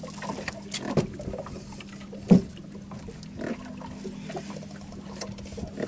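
A few knocks and thumps on an aluminium boat as fish and gear are handled on the deck, one sharp thump about two seconds in the loudest, over a steady low hum.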